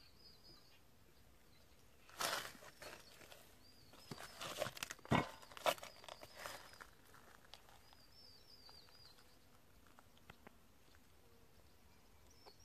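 Rustling and crunching of movement on gravel and grass, in a few short bursts about two seconds in and again from about four to seven seconds in. A small bird chirps faintly in the background.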